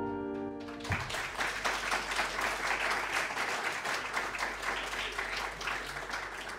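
The last chord on a grand piano rings and dies away, then an audience breaks into applause about a second in, the clapping slowly fading near the end.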